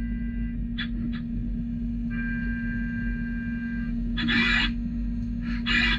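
Brother Speedio U500Xd2-5AX machining centre milling aluminium with an 8 mm four-flute endmill at about 7,950 rpm under flood coolant. A steady hum runs under a high whine that comes and goes. There are short noisy bursts about a second in and two louder, longer ones in the second half.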